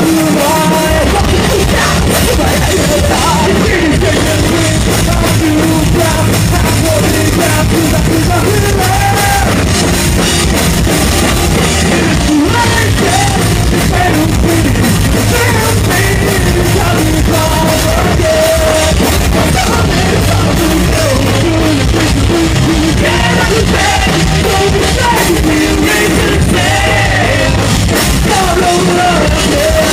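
Loud live punk rock: a full band with drum kit and guitars playing without a break, with a voice singing over it.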